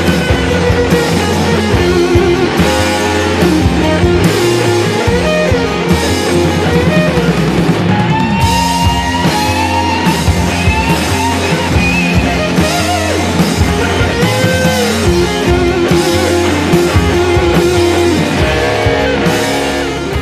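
Rock music track with guitar and a steady drum beat, the guitar notes sliding and bending.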